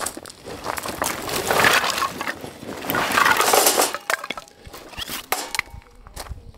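Dishes and camp cooking gear clattering and clinking as they are handled and set down, busiest for about the first four seconds, then a few lighter clinks.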